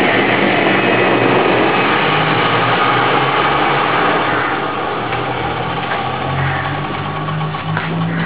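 Electric power saw running and cutting, a loud, steady machine noise whose low motor hum strengthens a little in the last few seconds.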